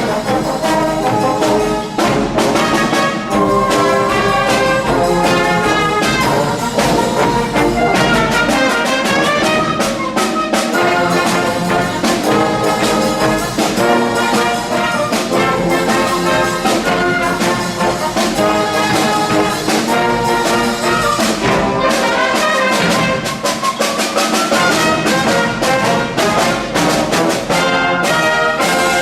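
Wind band playing a loud brass-led passage, trombones and trumpets to the fore, with percussion hits growing denser in the second half.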